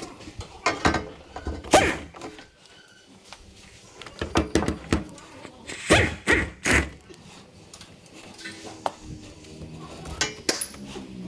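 A series of irregular knocks and thuds, the loudest about two seconds and six seconds in, some with a short ring after the strike.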